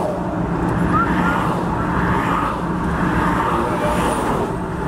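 Steady roar of highway traffic passing close by, over a low, even engine hum.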